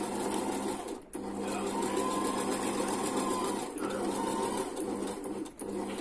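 Electric household sewing machine stitching at a steady speed, a continuous whir over a low hum, with a short stop about a second in and brief dips later on. At the start it is backstitching, the reverse sewing lever held down.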